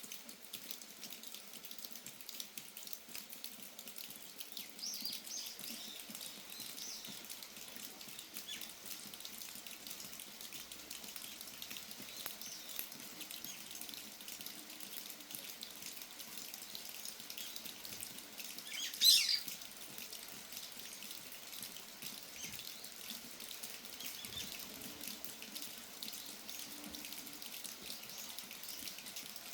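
Steady rain falling and dripping, with brown-eared bulbuls calling: a few faint calls around five to seven seconds in and one loud call about nineteen seconds in.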